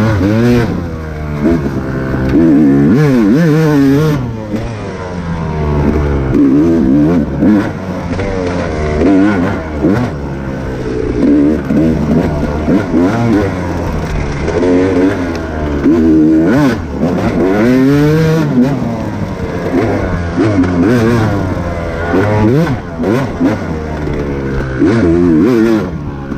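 Off-road dirt bike engine racing, its pitch rising and falling over and over as the throttle is opened and closed.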